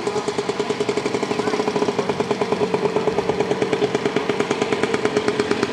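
Trials motorcycle engine running at idle, a rapid, even pulsing over a steady hum that grows slightly louder.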